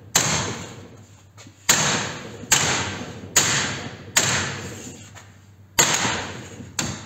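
Seven hammer blows on a steel seat-base trim piece, struck through a wooden block to take a twist out of it. Each blow is a sharp bang that dies away over most of a second, with a longer pause before the last two.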